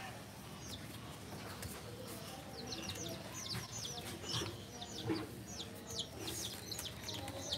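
Baby chicks peeping: a string of short, high cheeps, each falling in pitch, coming several a second from about two and a half seconds in.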